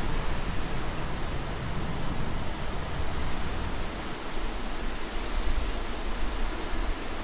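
Steady rushing noise of water with a deep rumble beneath it. The rumble thins out about four seconds in.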